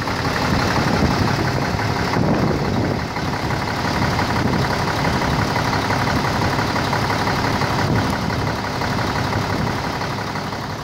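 Renault Magnum truck's MIDR 06.24.65 six-cylinder diesel engine, with 1,250,000 km on it, idling steadily, fading out near the end.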